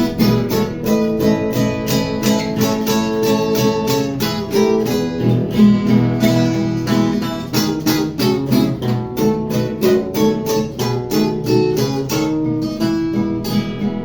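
Acoustic guitar playing an instrumental break between verses of a worship song, strummed in a steady rhythm of about four strokes a second with a melody line over the chords.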